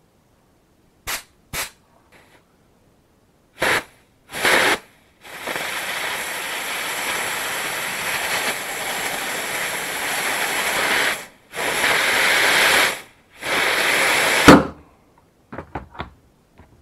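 Compressed-air blow gun hissing in short blasts, then in long blasts into a Skoda brake caliper cylinder to force out a seized piston. The piston comes free with a single sharp bang near the end, followed by a few small clicks.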